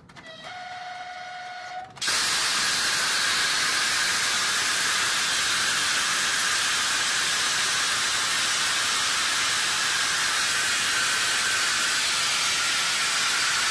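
A locomotive horn blows a steady note; about two seconds in, a loud, even hiss cuts in abruptly and holds steady.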